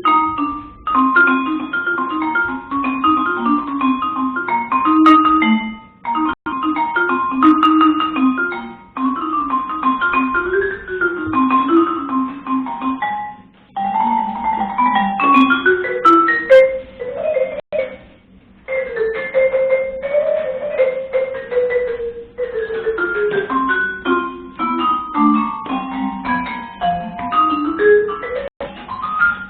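Mallet percussion played in quick runs of separate ringing notes, in phrases with short pauses between them; several runs step downward in pitch.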